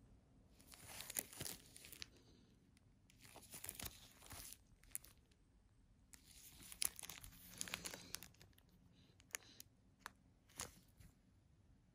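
Faint crinkling and rustling of plastic shrink-wrap under gloved fingers as a CD jewel case is handled and turned over. It comes in three bursts, with a few short sharp taps of the case near the end.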